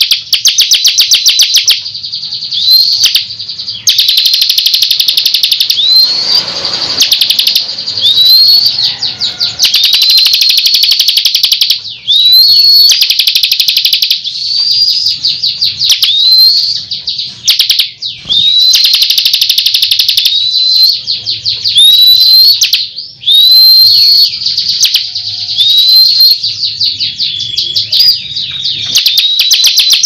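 Bar-winged prinia (ciblek kristal) singing loudly without pause: very fast rattling trills alternating with repeated rising, upslurred whistled notes.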